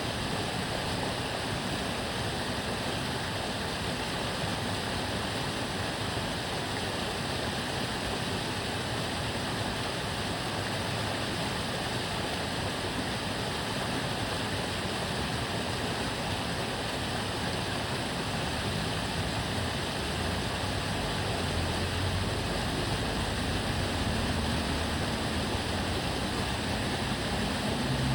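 Water of the Tamagawa Jōsui canal flowing and babbling steadily. In the last third a low rumble of passing road traffic rises underneath it.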